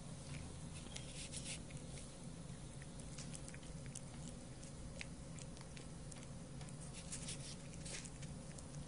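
A cat eating wet food off its own paw: faint, irregular small wet clicks of licking and chewing, over a low steady hum.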